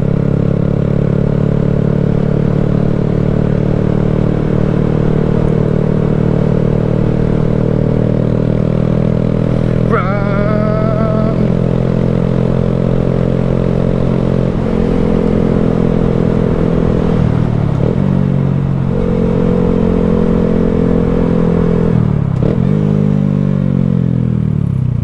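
2020 Honda Grom's 125 cc single-cylinder engine running under way at a steady pitch. About halfway through its note drops, it dips twice more, and it falls away near the end as the bike slows. A brief rising whistle-like sound comes in about ten seconds in.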